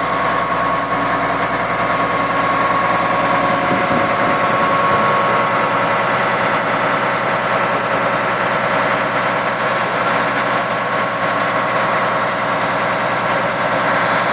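Komatsu D85EX-15E0 crawler bulldozer's diesel engine running steadily, with a steady whine over the engine's rapid firing pulses.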